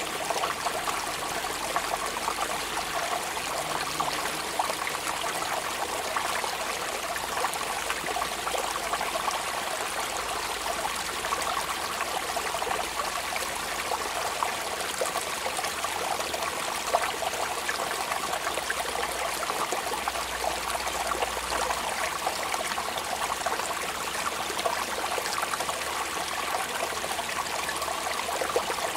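Steady rain falling, an even wash of many small drop ticks with no change in level.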